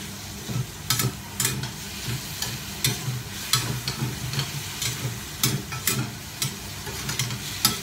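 Metal spatula scraping and clicking against a stainless steel wok as shredded chicken is stir-fried, in a dozen or so irregular strokes over a steady sizzle.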